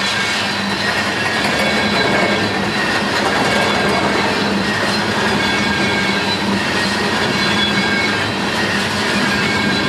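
Freight train rolling past at close range: a steady, loud rumble and clatter of wheels on rail, with faint thin squeals from the wheels.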